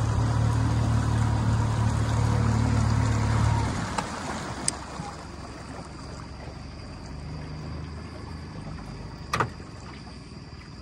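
A jon boat's motor running steadily under way, then dropping off sharply about four seconds in as the boat slows, leaving a quieter background hum. A couple of light clicks follow, and one sharp knock comes near the end.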